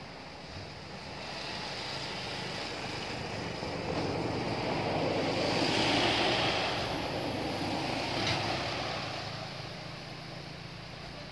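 A Fuso truck driving past on the road: its engine and tyre noise build to a peak about halfway through and then fade away.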